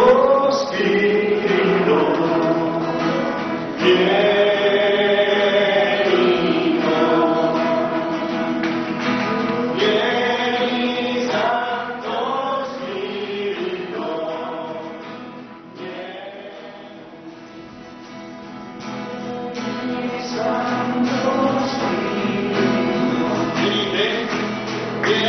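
A group of voices singing a slow hymn together in long held notes. The singing grows softer about two-thirds of the way through, then swells again near the end.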